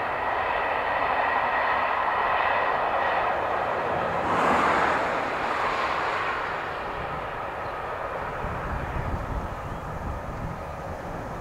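Distant passing train, hauled by the LNER A4 three-cylinder Pacific steam locomotive Bittern at speed: a steady rushing noise that swells to its loudest about four and a half seconds in, then fades as it runs away. A low rumble comes in over the last few seconds.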